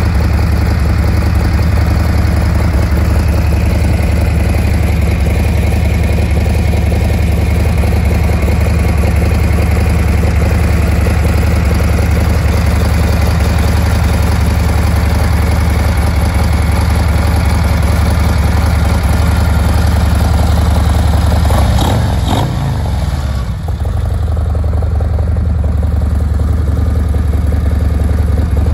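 Harley-Davidson Milwaukee-Eight V-twin, bored out to 117 cubic inches (1923 cc) with torque cams and Screamin' Eagle pipes, idling steadily. About three-quarters of the way through there is some brief clatter and a short dip in level.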